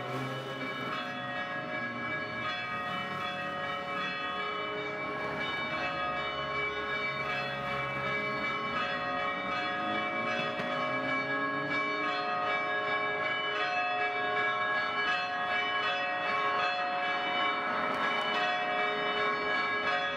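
Bells ringing: many overlapping bell tones that ring on together in a dense, steady wash and grow slowly louder.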